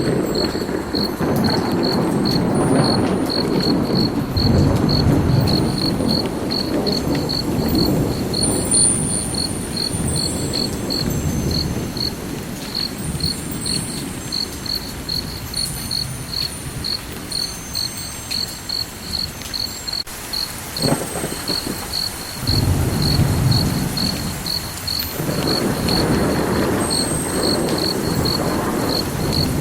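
Cricket chirping in a steady, even rhythm, a little over two high chirps a second, over a low rolling rumble like distant thunder that swells, eases off in the middle and builds again near the end.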